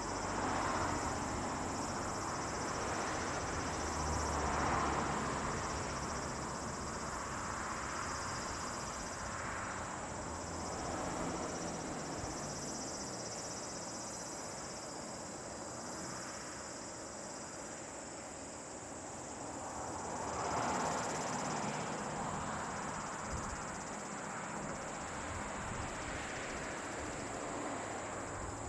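A steady high-pitched chorus of insects chirping with a fast even pulse, over the low hum of a Boeing 737-800's CFM56 jet engines at low power as it slows and taxis. The hum swells and fades a few times.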